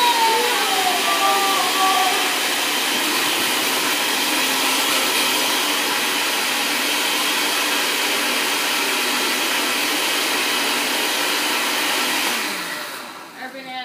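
Cheap countertop blender running at full speed, blending frozen strawberries, a frozen banana and apple juice into a smoothie: a steady motor whir with the churn of the frozen fruit. It is switched off near the end and winds down to a stop.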